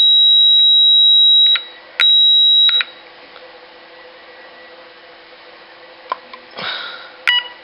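Roshni electronic fire alarm sounder giving a steady high-pitched tone for about a second and a half, a brief break, then the same tone again for under a second before it stops. A couple of sharp clicks near the end.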